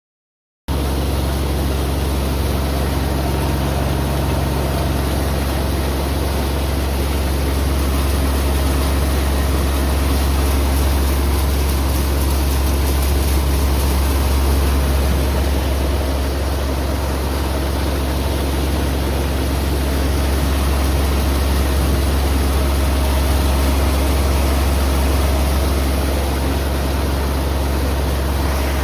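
Yanmar CA125M engine running steadily at an even speed after its repair, a constant low hum that starts abruptly about half a second in.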